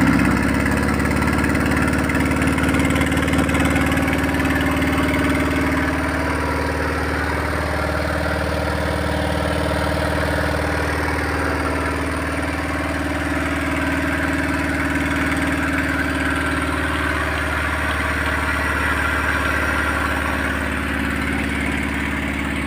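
Toyota 4E-FTE 1.3-litre turbocharged four-cylinder engine, with a TD05 turbo and open, unmuffled exhaust pipes, idling steadily on its first run after being built.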